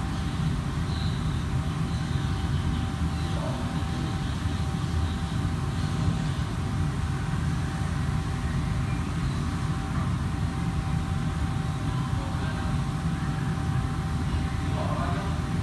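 A steady low rumbling hum with a faint constant whine above it. Faint, indistinct voices are heard now and then in the background.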